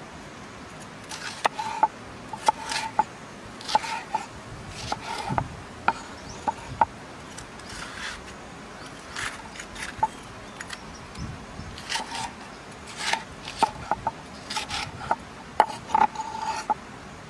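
Knife slicing red bell pepper on a wooden chopping board: irregular crunching cuts and knocks of the blade against the board, coming in quick clusters of a few strokes.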